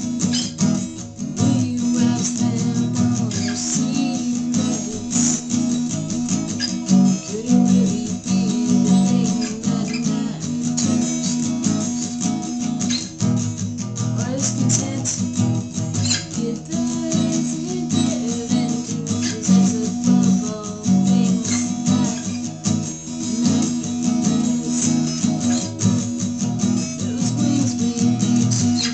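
Acoustic guitar strummed steadily in chords, with a voice singing along.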